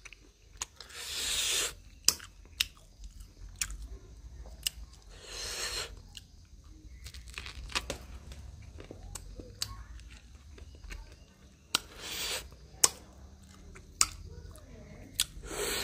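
Close-miked chewing and biting of corn: moist chewing with sharp crunching clicks, and four longer rushing sounds spaced through it.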